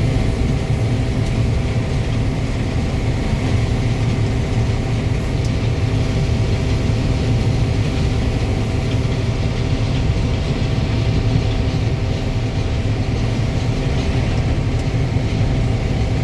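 Combine harvester with a 6-row corn header running steadily while harvesting corn: a constant engine and machinery hum with a heavy low rumble.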